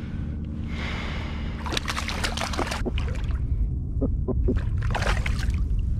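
Steady low wind rumble over water lapping at a kayak hull, with a cluster of short clicks and splashes about two seconds in and a few sharp ticks around four seconds in as a sea robin is handled at the side.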